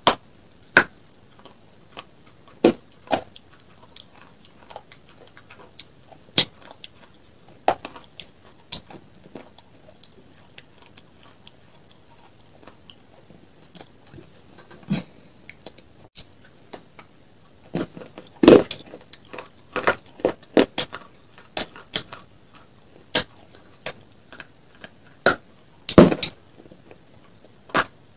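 Close-miked eating: sharp crunches and chewing of a hard, crunchy food, irregular and sparse at first, then coming thick and fast in two busier runs past the middle and near the end.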